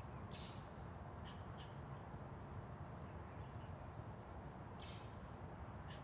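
Faint outdoor nature ambience: a steady low background hiss with a few short, scattered bird chirps and calls.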